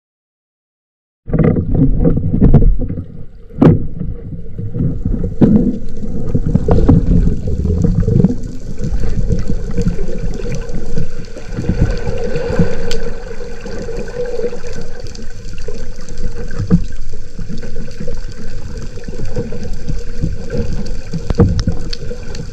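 After about a second of silence, muffled underwater noise from a camera in a waterproof housing: a dense rush and gurgle of water with scattered knocks and clicks, as a spearfisher swims with a speargun.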